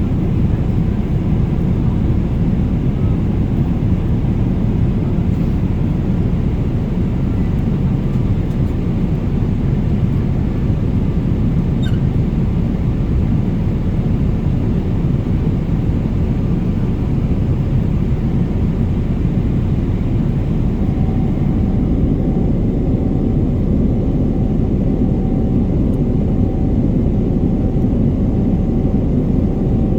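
Steady low engine rumble of a vehicle under way. A faint steady tone joins it about two-thirds of the way through.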